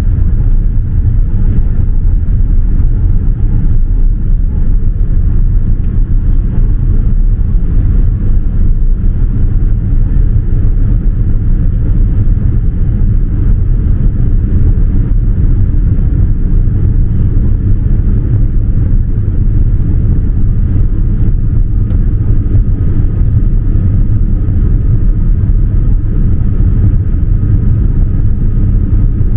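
Steady low rumble of engine and airflow noise heard inside a Boeing 787-9 airliner cabin during descent. A faint steady whine comes in about two-thirds of the way through.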